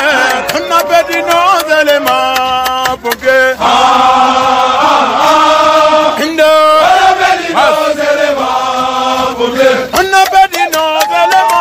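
A group of men chanting a military marching song in unison, some notes held long, with sharp regular beats behind the voices.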